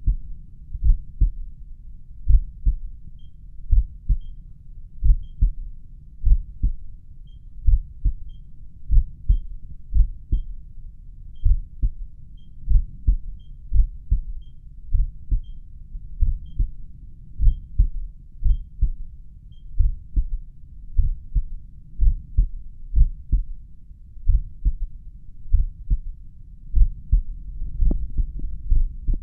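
Slow resting human heartbeat heard through a stethoscope at the mitral area: steady lub-dub heart sounds at about one beat a second. Through about the first two-thirds, faint high beeps, also about one a second, come from the pulse oximeter's low-heart-rate alarm.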